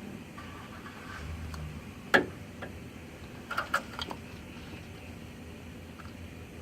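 A sharp click about two seconds in, then a quick cluster of lighter clicks a second and a half later: small hard parts or tools being handled during work on the glow plug harness.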